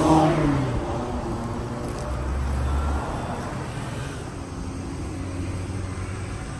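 A car drives past close by, its engine note falling in pitch as it goes by in the first second, then fading into a steady low hum of street traffic.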